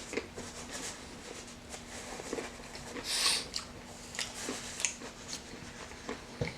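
A person chewing a bite of pizza: faint, scattered mouth clicks, with a short soft hiss a little past the middle.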